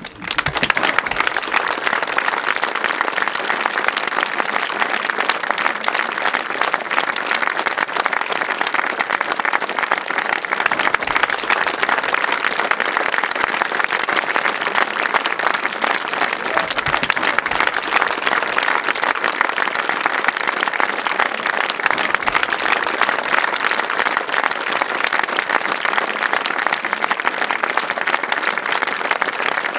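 Theatre audience applauding at the curtain call. Many hands clap at once, breaking out suddenly and going on evenly.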